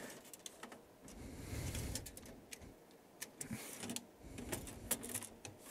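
A dual power-supply plug-in module being pulled out of a bay of a Tektronix TM5006 power frame by hand: scattered light clicks and knocks with a soft sliding scrape, as metal and plastic parts rub and tap.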